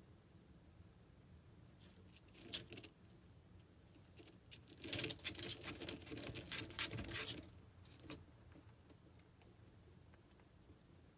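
Bearded dragon biting and chewing into a bowl of leafy greens and chopped vegetables: a short crunch about two and a half seconds in, then a dense run of crunching and leaf crackle lasting about three seconds, with a few more scattered bites after.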